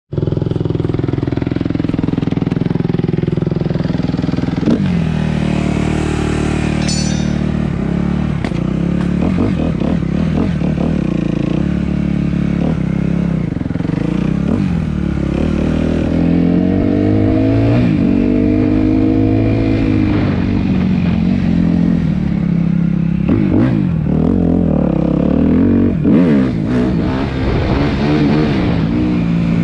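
Suzuki RM-Z250 dirt bike's four-stroke single-cylinder engine running under riding load, its pitch rising and falling again and again as the throttle is opened and closed, with a few short knocks or clatters along the way.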